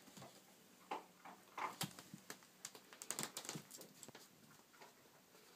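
Faint, irregular taps and rustles of a kitten playing around a laundry hamper.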